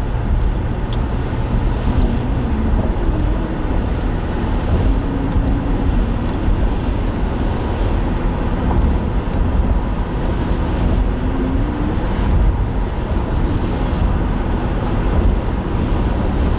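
Steady road and tyre noise inside a moving car, with a faint engine drone that drifts slightly up and down in pitch.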